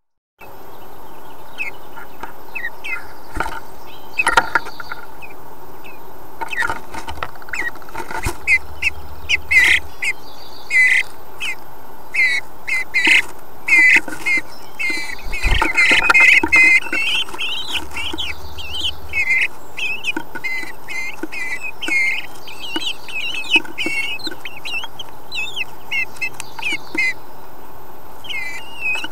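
Bluebirds in a wooden nest box giving many short, wavering chattering calls, densest about halfway through. Scattered scratches and knocks of the birds moving on the nest material, over a steady hiss.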